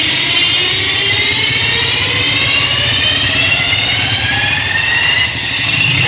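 A jet-like rising sweep effect played loudly through a DJ truck's sound system, climbing steadily in pitch for about five seconds and cutting off suddenly near the end.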